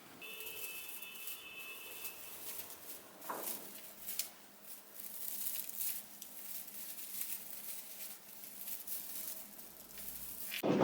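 Faint rustling with scattered small clicks and taps, as of objects being handled and set down.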